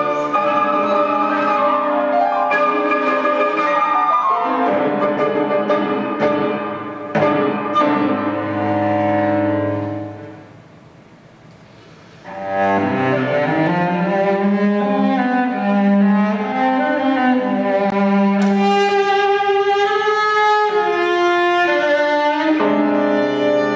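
Chamber trio of flute, cello and piano playing classical music, with the cello most prominent. About ten seconds in, the music thins out to a soft moment for a couple of seconds. It then picks up again, with the cello playing rising and falling lines.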